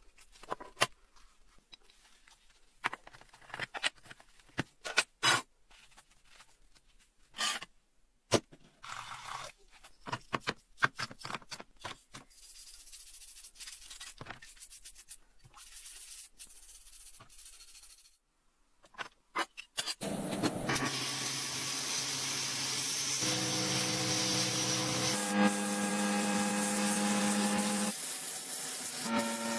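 Sharp clicks and light scrapes of a small rusty metal part being handled, then steady scrubbing of it with a toothbrush in a liquid bath. About twenty seconds in, the loud steady hiss of a sandblasting gun in a blast cabinet starts, with steady humming tones under it.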